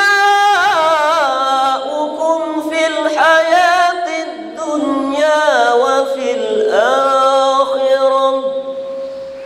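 A man's voice chanting Quranic recitation in a melodic style, drawing out long, ornamented held notes with wavering pitch.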